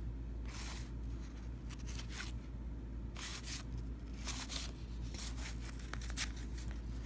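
1990 Fleer basketball cards being slid and flipped one over another: a string of short, irregular papery swishes over a steady low hum.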